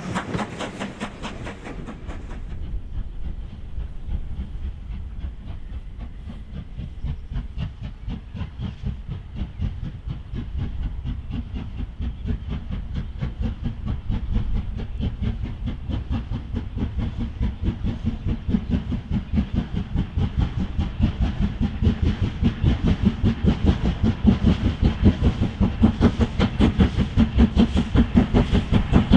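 Steam locomotive working a train, its exhaust beating in a fast, even rhythm over the rumble of the train on the rails, growing louder as it approaches. A hiss fades out in the first couple of seconds.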